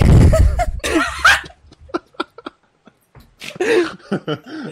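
Men bursting into laughter, loudest in the first second and dying down by about two seconds in, with more laughing near the end.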